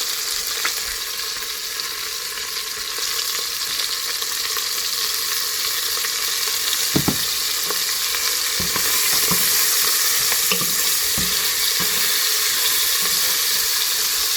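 Pieces of goat meat sizzling as they fry in hot oil in a pan, a steady crackling hiss, with a few light knocks of a utensil stirring them in the second half.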